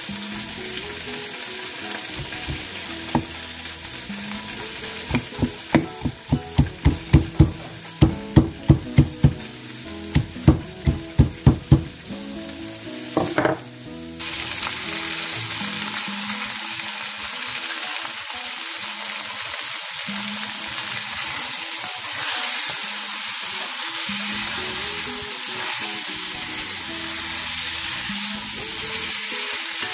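A stone pestle pounding lemongrass stalks in a granite mortar: a run of sharp knocks, two to three a second, over a low sizzle of frying. About halfway through it gives way to a louder, steady sizzle of chicken and pork pieces frying in oil in an enamelled cast-iron pot, stirred with a wooden spoon.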